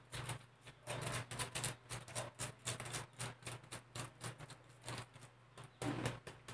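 Block of cheese grated on a handheld metal-bladed grater: a quick, uneven run of short rasping strokes, a few a second.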